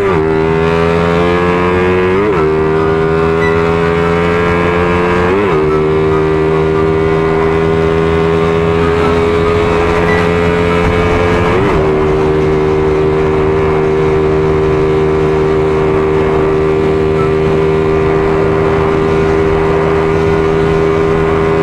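Suzuki Raider R150 Fi motorcycle's single-cylinder engine under hard acceleration at highway speed. It changes up three times in the first dozen seconds, then holds a steady high-revving drone in top gear.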